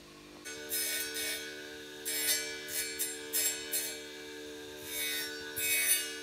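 A small piece of wood ground against the edge of a spinning disc on an electric motor's shaft: a steady motor hum with repeated rasping strokes each time the wood is pressed on, starting about half a second in.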